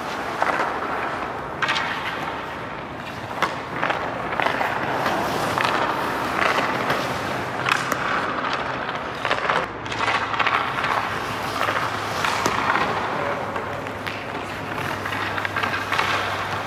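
Hockey drill on ice: skate blades scraping and sticks and pucks clacking on the ice and off goalie pads, with a run of sharp knocks over a steady scraping noise.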